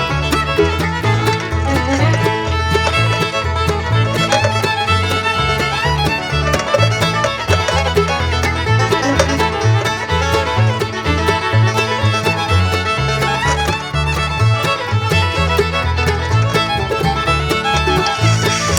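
Background music in a bluegrass-country style, with fiddle and banjo over a steady bass beat.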